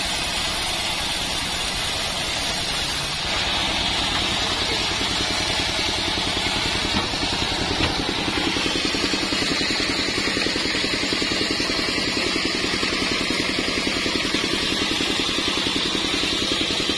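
Engine of a mobile band-saw sawmill running steadily with a fast, even beat, its band blade cutting a hard acacia log; the sound of the cut changes about three seconds in as the log passes through.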